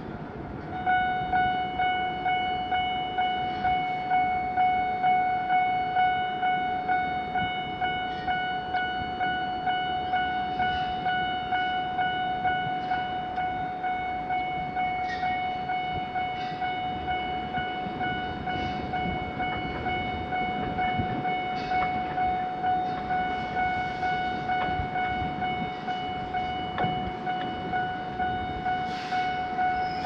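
Japanese railway level-crossing warning alarm, an odd-sounding one, starting about a second in: a steady high ringing tone pulsing in quick regular beats, sounding the warning that a train is approaching and the barriers are closing.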